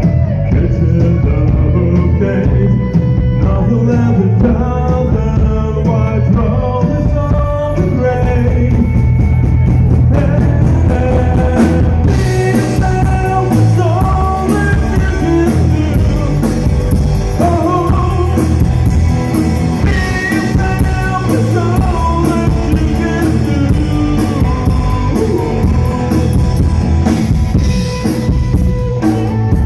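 Rock song played loud and continuously: a sung melody over guitar, with a drum kit keeping a steady beat.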